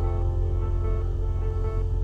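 Background music: sustained held notes over a steady low bass, with no clear beat.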